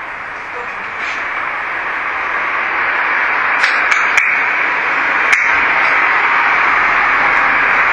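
Loud, steady rushing noise that grows gradually louder, with a few sharp clicks around the middle.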